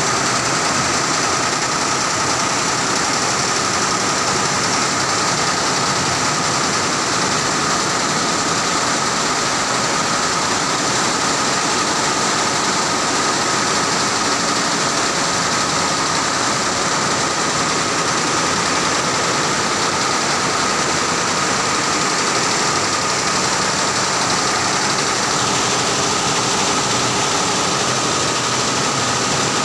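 Alliance multi-head industrial embroidery machine running: a steady, dense mechanical clatter with a constant high-pitched tone over it. Part of the hiss in the upper range drops away near the end.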